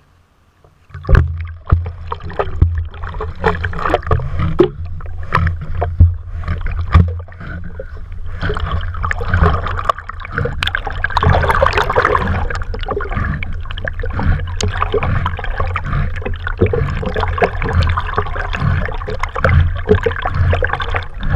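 Pond water splashing and sloshing against a stick-mounted GoPro as a Labrador retriever swims up to it, starting suddenly about a second in with irregular slaps. From about eight seconds the dog holds the stick in its mouth and tows it, and the water rushes steadily past the camera.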